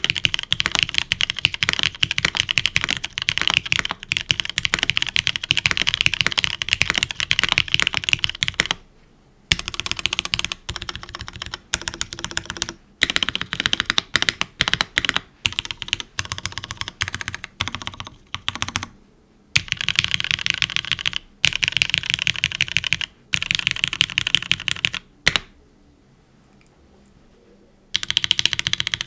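Fast typing on a gasket-mounted aluminium-plate mechanical keyboard with GMK keycaps and broken-in Cherry Nixie switches: dense runs of keystroke clicks broken by short pauses. Near the end the typing stops for a couple of seconds, then starts again, as the test moves on to HMX Sonja HC switches.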